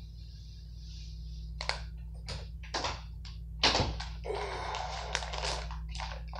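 Plastic salad bag crinkling in short, irregular bursts as it is handled and opened, starting about a second and a half in, over a steady low hum.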